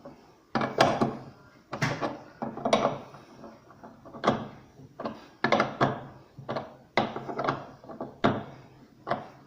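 About ten irregular knocks and clunks, roughly one a second, from hand work on the newly fitted drive pulley and its retaining nut under a Consul CWL washing machine.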